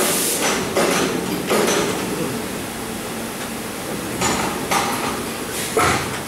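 Injection moulding machine running with the mould clamped shut: a steady hum broken by several short hissing bursts, with a knock just before the end.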